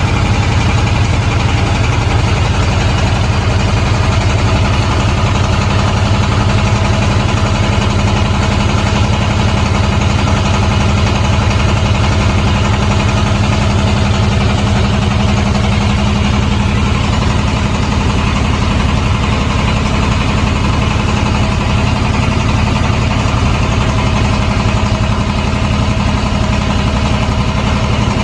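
Boat engine running steadily at an even speed, with a strong low hum and a fast, regular pulse.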